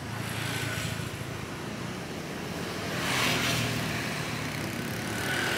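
Street traffic: a steady hum of motor vehicles running, with a louder swell about three seconds in.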